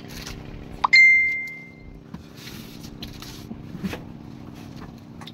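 A single bright metallic ding about a second in, ringing out and fading over about a second, over the steady hum of the boat's engine. A few faint clicks and knocks follow.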